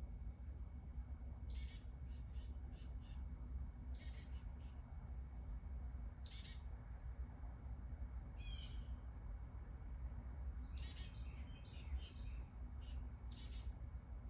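A bird calling repeatedly: five high calls that fall sharply in pitch, spaced a few seconds apart, with short chirps in between, over a steady low hum.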